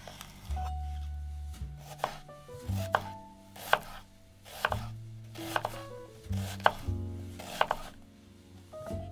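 Chef's knife slicing through an onion onto a bamboo cutting board: crisp chops about once a second.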